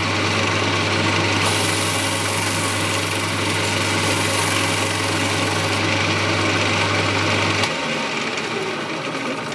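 Small wood lathe's electric motor running steadily with a low mains hum while a rag rubs oil onto the spinning bird cherry bowl. A little over 7 seconds in the motor is switched off, the hum stops suddenly and the lathe begins to run down.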